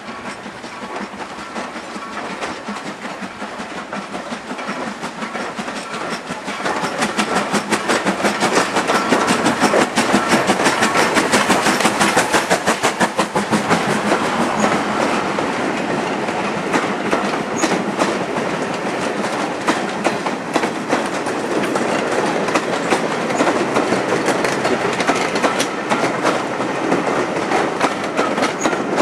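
A passenger train passing close by, its coach wheels clattering over rail joints in a rapid repeating rhythm. It grows louder about seven seconds in as the coaches come alongside, then carries on steadily.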